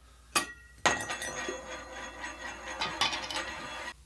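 Glass mason jar of water being handled: a sharp clink, then a steady clinking, scraping rattle of glass for about three seconds that stops abruptly near the end.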